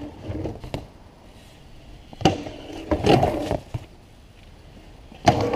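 BMX bike on a concrete skatepark: a knock just after the start, a sharp knock about two seconds in followed by about half a second of clattering rattle, and another loud knock with clatter near the end, from the tyres and frame landing and rolling on the concrete.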